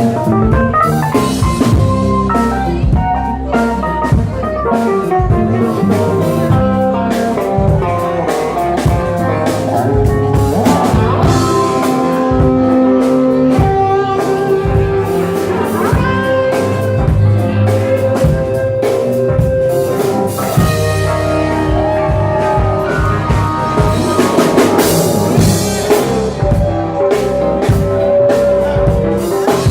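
A band playing blues-rock with guitar and a drum kit, a steady beat under held guitar notes.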